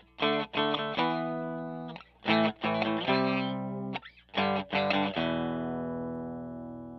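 Electric guitar (American Stratocaster) through the Power2 fuzz pedal and a Fender Blues Junior amp, playing three short bursts of fuzz-distorted chords. The last chord rings out and slowly fades.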